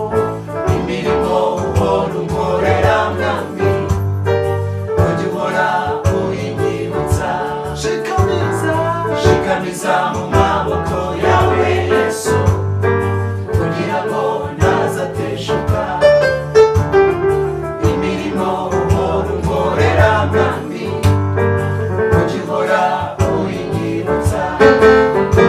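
A small group of men's and a woman's voices singing a gospel worship song in harmony, accompanied by chords on an electronic keyboard.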